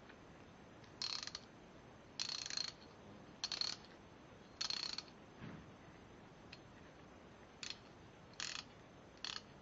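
3/8-inch drive ratchet wrench clicking in seven short bursts as it is worked back and forth. The first four bursts are longer and the last three briefer.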